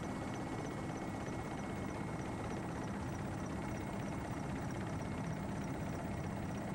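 Steady engine drone, with a faint rapid ticking high above it.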